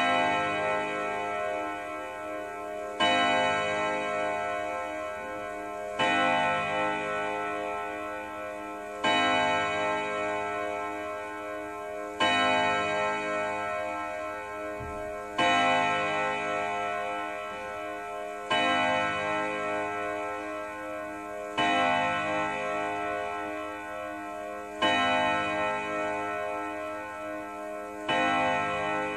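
Pendulum wall clock striking twelve on its gong: slow strikes about three seconds apart, ten of them here, each ringing on in several tones and fading before the next.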